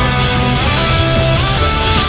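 Background rock music with guitar.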